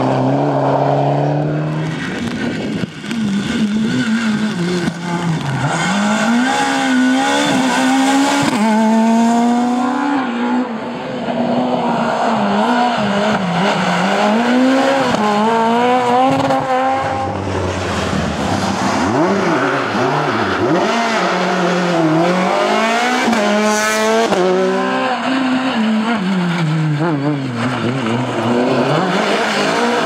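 Rally car engines revving hard at speed, the pitch climbing and dropping repeatedly through gear changes and throttle lifts as cars pass one after another.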